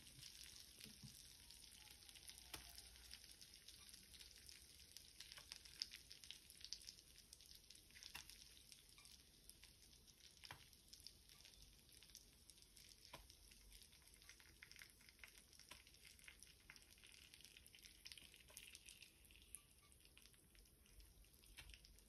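Faint sizzling of butter frying in a clay pan, with peeled hard-boiled eggs browning in it: a steady hiss scattered with small crackles and pops.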